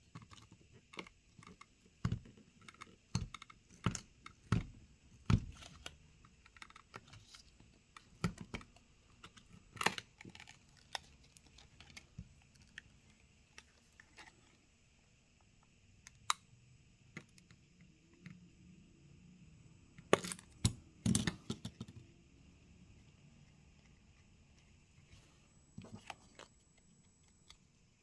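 Small repair tools clicking and tapping against a Samsung Galaxy Z Flip 5's glass and frame as it is pried apart. The irregular clicks come in bunches, a run of them in the first several seconds and another about two-thirds of the way through, with quieter gaps between.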